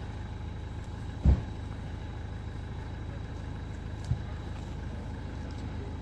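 A vehicle engine idling steadily with a low, even rumble. Two dull thumps break through, a loud one about a second in and a softer one about four seconds in.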